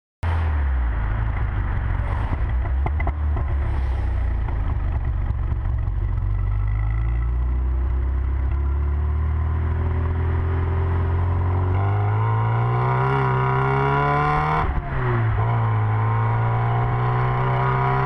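Car engine running, then accelerating with its pitch climbing, a brief drop for a gear change about fifteen seconds in, and climbing again.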